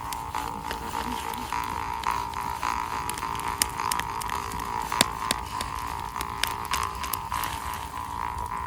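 Jaw harp (vargan) droning on a steady note, with a campfire crackling underneath: sharp pops and snaps of burning wood come every so often, the loudest about five seconds in.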